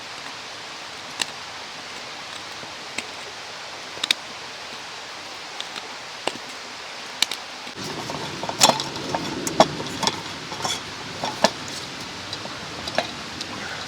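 Steady rushing of a mountain stream, with scattered sharp crackles and clicks over it that become busier and louder about eight seconds in.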